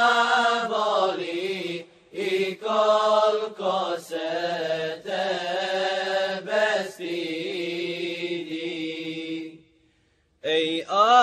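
Wordless vocal interlude of a Bosnian ilahija (Islamic devotional song). Voices hold and glide through a melody over a steady drone, cut off for a moment near the end, and then the singing comes back.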